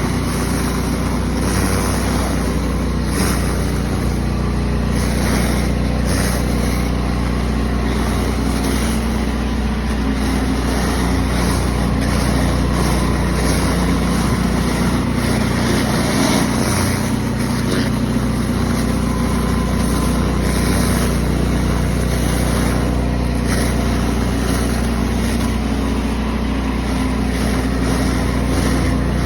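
Pressure washer's engine running steadily under load while the wand sprays, a constant engine hum with a hiss of water above it.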